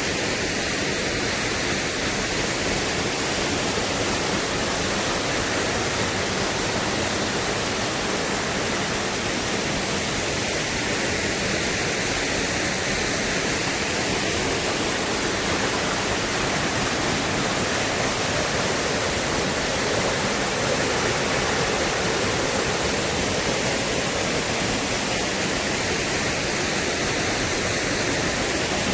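Waterfall's steady, loud rush of falling water, an even roar with no let-up.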